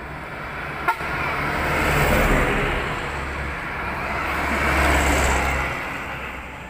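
A light cargo truck drives past close by: engine hum and tyre noise swell, loudest about two seconds in and again about five seconds in as it goes by, then fade. A single sharp click just under a second in.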